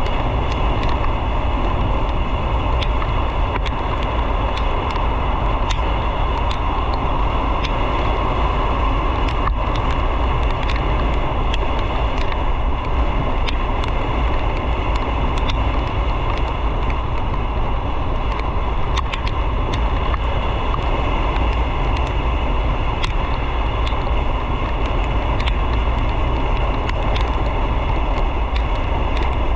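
Motorcycle on the move at a steady pace: engine and wind noise on the microphone hold at an even level throughout.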